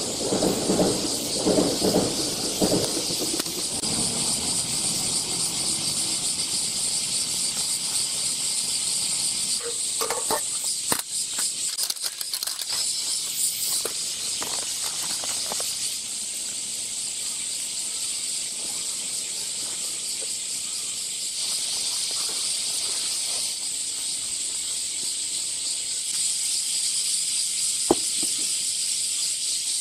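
A steady chorus of cicadas, with handling noises over it: scraping and clatter in the first few seconds, a run of rustling and knocks around ten to fifteen seconds in, and one sharp click near the end.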